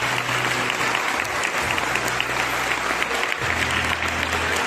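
Audience applauding steadily, a dense patter of many hands clapping, over low sustained background music notes.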